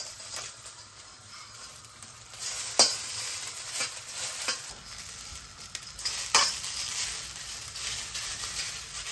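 Noodles sizzling in hot oil in a steel wok, stirred and turned with a metal slotted spatula that scrapes and knocks against the pan. There are two sharp clinks, about three and six seconds in.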